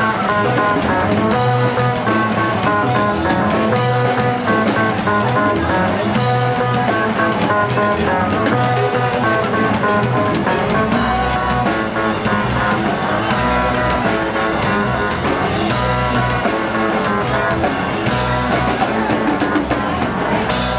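Live band playing an instrumental hip-hop/jazz fusion passage: electric guitar, drum kit and keyboard, with saxophone coming in.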